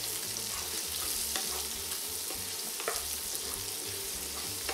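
Bacon, cooked pinhão (araucaria pine nuts) and grated carrot sizzling steadily in a frying pan while a wooden spoon stirs them, with a few light clicks of the spoon against the pan.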